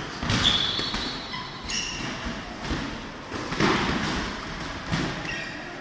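Boxing gloves thudding on pads and bodies in kickboxing sparring, a handful of thuds spread a second or so apart, with short squeaks from sneakers on the mat.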